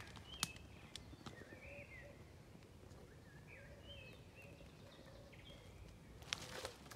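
Faint woodland birdsong: scattered short chirps and trills, and a soft call repeated every half second or so in the middle, over a low steady background noise. A few sharp crackles of footsteps on twigs and leaf litter come near the end.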